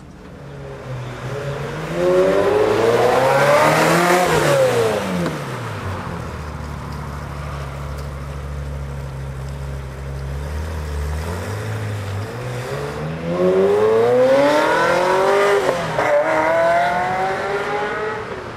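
Ferrari F355's V8 through a Tubi exhaust with the catalytic converters bypassed, revving up in pitch to high revs and dropping back, twice, with a steady lower note in between.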